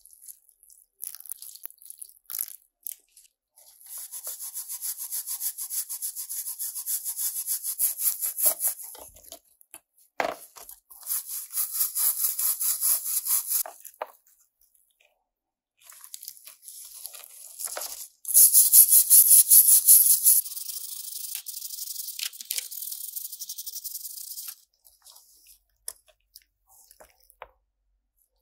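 A small stiff brush scrubbing the wet, soapy, rusted metal body of a die-cast model car in quick back-and-forth strokes. It comes in several spells with short pauses and is loudest about two-thirds of the way in. A single sharp knock sounds about a third of the way in.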